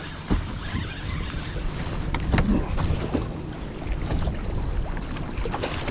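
Wind rumbling on the microphone over lake water, with a few short sharp splashes and knocks as a hooked largemouth bass thrashes at the surface beside the boat.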